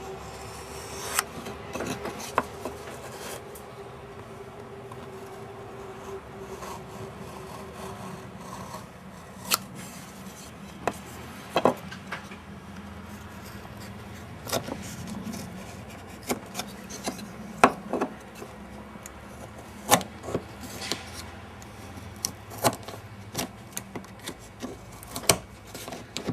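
Utility knife scraping along the seam between a plastic keycap and a wooden piano key, scoring through the glue seal, with scattered sharp clicks and ticks of the blade and cap, more of them in the second half.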